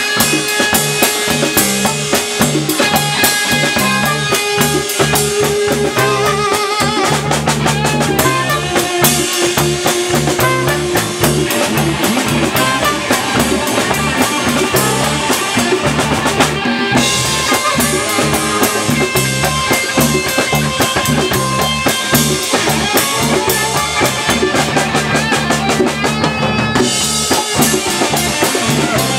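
Live band playing: drum kit with snare, bass drum and cymbals, a steady electric bass line and a horn section playing held notes. The cymbals drop out briefly twice.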